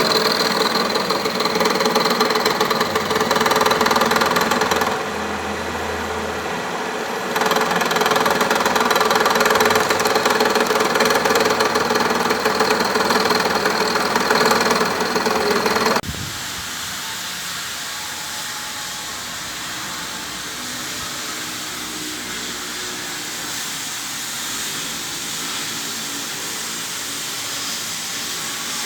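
Machine-shop machinery running loudly with a dense mechanical clatter and a faint steady hum. Partway through it cuts off abruptly and a steady hiss follows.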